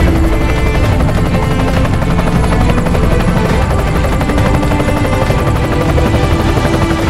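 Several small helicopters flying past together: a loud, steady, rapid chop of rotor blades over the engine's hum.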